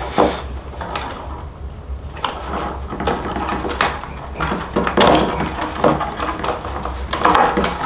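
Rawhide lacing being worked loose and pulled through the back of a hand-made frame drum: irregular rubbing and scraping of hide cord against hide, with a few brief knocks.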